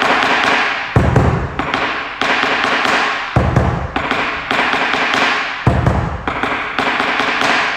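Dance-class accompaniment music: sharply struck ringing chords about once a second, with a deep beat about every two and a half seconds.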